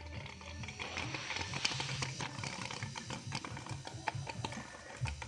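Small toy blender running with stiff slime inside, giving a hissing whir and irregular clicks and knocks as the blade catches on the slime. Faint film music plays in the background.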